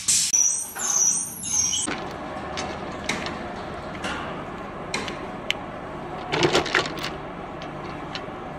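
Grease gun hissing in short spurts as grease is laid along a slewing bearing's raceway, stopping about two seconds in. After that a steady low workshop background with scattered clicks, and a short burst of clicks about six and a half seconds in.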